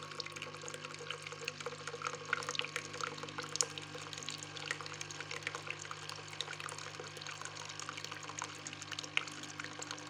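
Rinse water from a Bosch Tassimo Suny coffee machine running in a thin stream into a plastic jug during its short flushing cycle after descaling. The stream trickles with many small splashes over a steady low hum from the machine.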